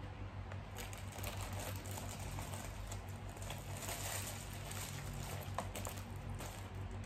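Close-miked chewing and mouth sounds of someone eating a mouthful of food: small wet clicks and smacks, over a steady low hum.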